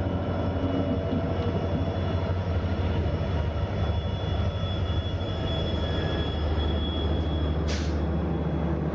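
Diesel locomotive idling close by: a steady low engine hum with a faint high whine over it. A short hiss near the end.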